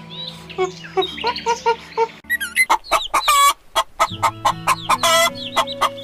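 Hens clucking over and over, with a longer squawk near the end, starting about two and a half seconds in, over background music. Before the hens come in there are short repeated pitched calls.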